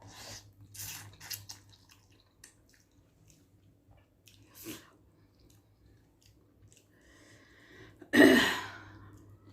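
A person eating Korean instant food: quiet chewing and mouth clicks, with a loud sudden burst of noise about eight seconds in that fades over about a second.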